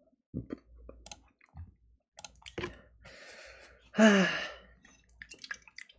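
A man's breathy exhale, then a short voiced sigh falling in pitch about four seconds in, among scattered small clicks from a computer mouse and keyboard.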